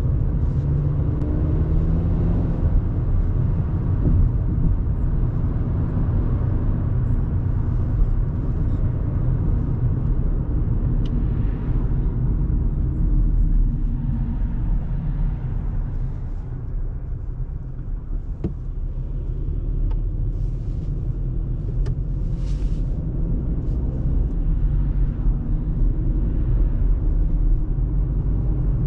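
2024 Audi A3 Sportback with the 1.5 TFSI turbocharged four-cylinder, driving: a steady low rumble of engine and road noise. It eases a little past halfway and builds back up toward the end.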